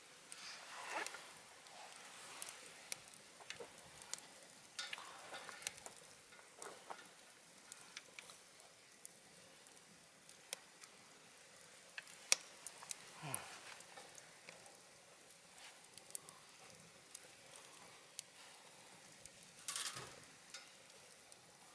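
Scrap-wood fire crackling in a wood stove: scattered sharp pops and clicks, with a few short hisses about a second in, around five and thirteen seconds, and near the end.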